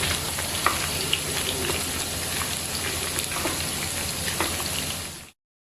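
Chicken pieces shallow-frying in hot coconut oil in a kadai: a steady sizzle with scattered pops and crackles. It fades and cuts off suddenly about five seconds in.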